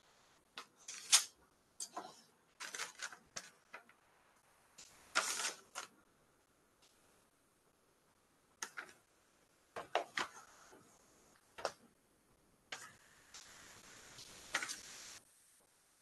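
Paper handling at a desk: an envelope being slit with a letter opener and the documents inside pulled out and shuffled, heard as irregular short rustles and crackles with quiet gaps between, and a couple of seconds of continuous rustling near the end.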